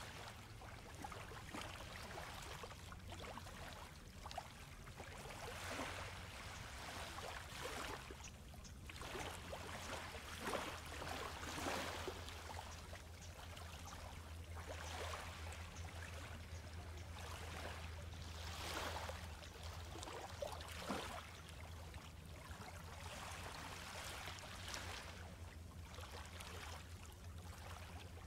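Small, gentle sea waves lapping and washing up on a sandy beach, swelling and fading every few seconds. A faint steady low hum runs underneath.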